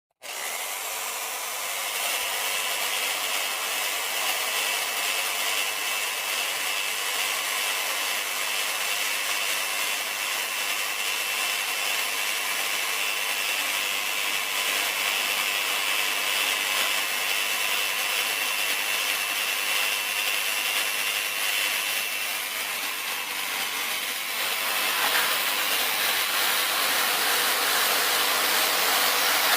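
Reciprocating saw running steadily as it cuts through pallet wood to break the pallet down, a little louder in the last few seconds.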